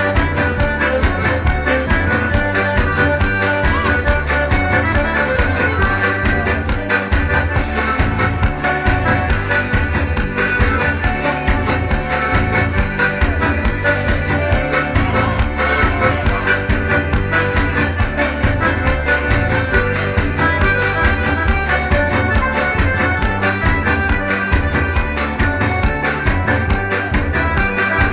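Instrumental festa junina quadrilha dance music with a steady, driving beat.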